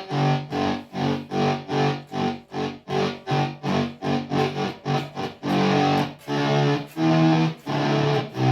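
Electric guitar played through a Sola Sound Fuzz Straight fuzz pedal, its treadle volume control swelling each note in and out for a bowed, violin-like effect. The notes come in quick pulses about three a second, then longer swelled notes over the last few seconds.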